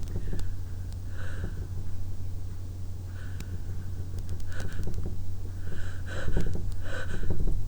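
A woman's nose and breath: repeated short sniffs and breaths through the nose, tickled with lemon balm, coming louder and quicker toward the end as a sneeze builds, over a steady low hum.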